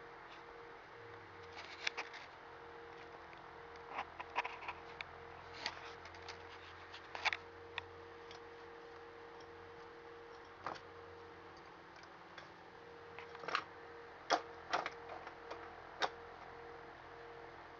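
Irregular light clicks and taps of small objects on a desk as a cat paws and bats at them, a few of them sharper knocks. A steady faint hum runs underneath.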